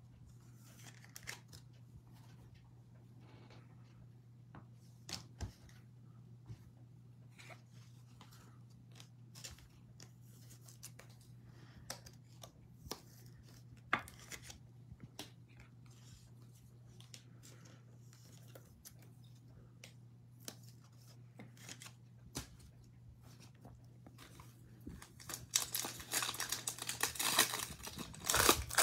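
Foil wrapper of a 2021 Bowman Draft baseball card pack being torn open and crinkled by hand near the end, the loudest sound. Before that, only scattered faint clicks and rustles over a low steady hum.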